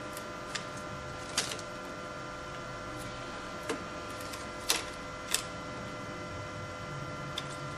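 A handful of sharp clicks and taps as ribbon-cable connectors and head cards are handled and seated on a Roland printer's head board, loudest about a second and a half in and twice near the middle. Under them runs a steady machine hum with a few constant tones.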